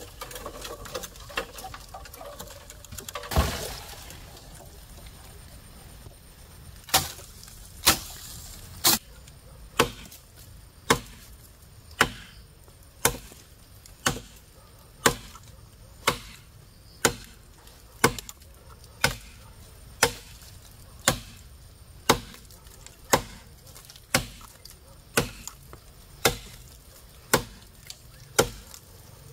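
Steady chopping into wood, one sharp blow about every second, starting several seconds in after a single louder, longer noise.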